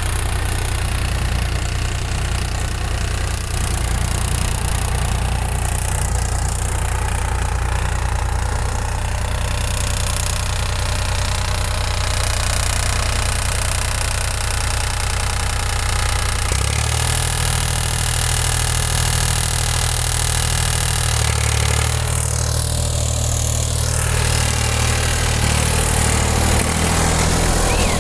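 Massey Ferguson 235 tractor's three-cylinder diesel engine running steadily with its air filter removed, which gives it a strange intake noise. Engine speed steps up slightly a little past halfway.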